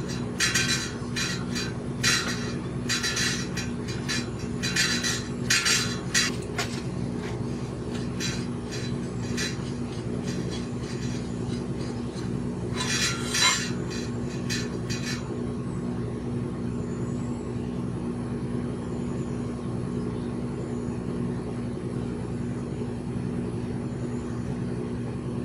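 Light metallic clinks and rattles of a bicycle fork and headset bearing parts being handled as the fork is worked out of the head tube. They are busiest in the first seven seconds, with another brief burst about thirteen seconds in, over a steady low hum.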